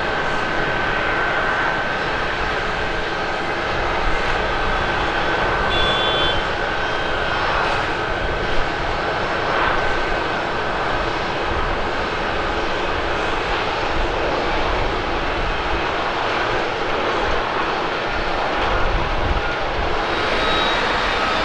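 ANA Airbus A321 jet airliner's engines running steadily as it rolls out along the runway after landing, with a faint steady whine over the jet noise.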